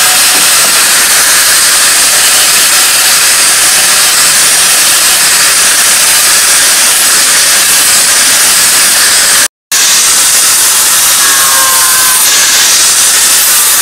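Electric angle grinder with an abrasive disc grinding a steel sword blank: a loud, steady grinding hiss. It cuts out abruptly for an instant just past halfway. After that a smaller angle grinder with a sanding disc works along the blade, with a faint thin whine over the hiss.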